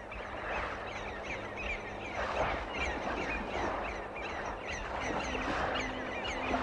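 Many seagulls calling, short falling cries one after another, over a steady rushing noise. A held musical note comes in about five seconds in.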